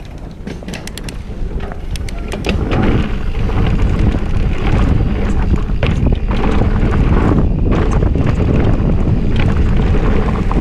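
Mountain bike descending a dirt downhill trail at speed: wind buffeting the microphone over tyre noise and the rattle of the bike on rough ground. A few sharp clicks near the start, then the rush grows loud and stays steady from about two and a half seconds in as the bike gains speed.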